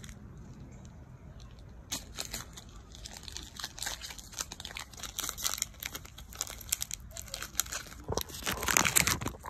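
Foil wrapper of a Pokémon booster pack crinkling and cards being handled. Short irregular crackles begin about two seconds in and build to a louder burst of crinkling near the end.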